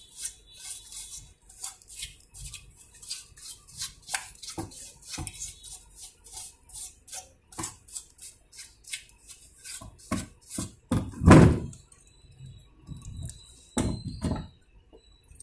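A stiff paintbrush scrubbing dust off a desktop motherboard in quick, scratchy strokes, a few a second. A loud thump comes about eleven seconds in, and a few more knocks follow near the end.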